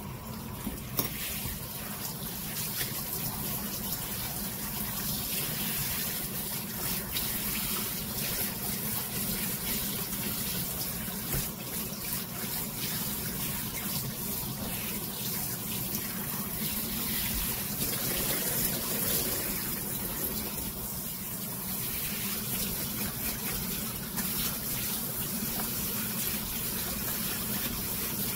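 Kitchen faucet spray running steadily, the water splashing onto a wet dog's fur and into the sink as it is rinsed.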